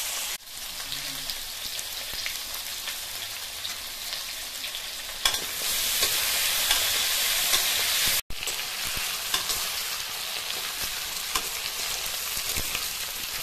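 Potato wedges sizzling as they fry in hot oil in a wok, with occasional scrapes and taps of a metal spatula stirring them. The sizzle gets louder about five seconds in and cuts out for a moment about eight seconds in.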